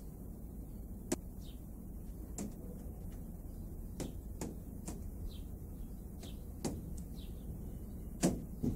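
Outdoor ambience over a low steady rumble: sharp, irregular clicks or taps, about eight of them with the loudest near the end, and faint short high chirps from small birds.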